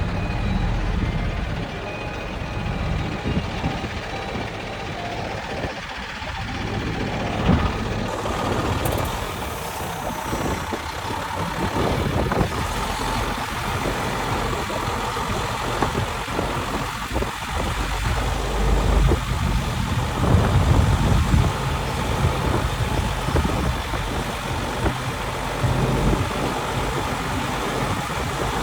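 A motor vehicle's engine running.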